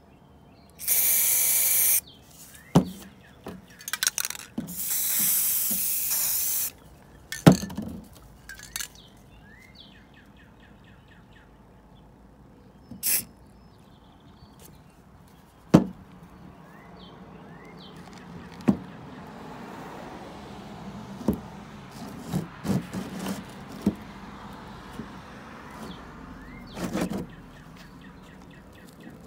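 Aerosol spray-paint can hissing in bursts: a one-second spray and a longer two-second spray in the first seven seconds, and shorter sprays later on. Sharp knocks and clicks from handling the can and panel come between them.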